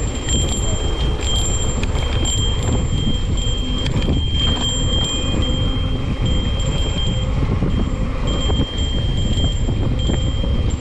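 Mountain bike riding on a dirt trail: a steady rush of wind and tyre rumble, with a high ringing tone that keeps cutting in and out.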